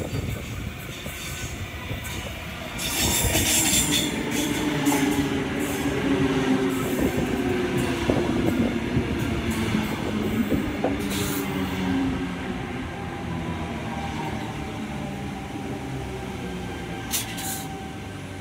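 Sydney Trains Tangara electric suburban train pulling in alongside the platform, its motor and wheel noise getting louder about three seconds in. Wavering low tones and a thin steady whine are heard, with a few sharp clicks from the wheels over the rails.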